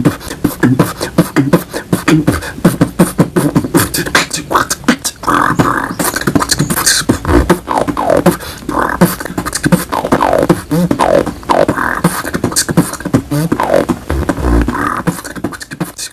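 Solo human beatboxing: rapid mouth-made percussive clicks and hits in a fast rhythm. From about five seconds in, held buzzing vocal tones and several falling pitch sweeps are mixed in, with a couple of deep bass hits.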